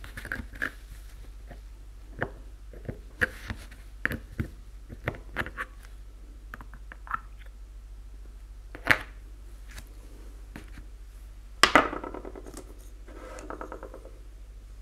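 Small metal clicks and taps as pliers work at the lid of a small model-paint tin, with a sharper click about nine seconds in. A louder metallic clatter comes near twelve seconds, followed by a brief scuffing.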